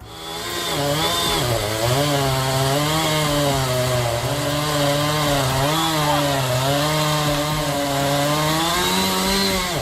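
Two-stroke chainsaw running at high revs, its engine pitch dipping and recovering under load as it cuts into wood, then rising near the end.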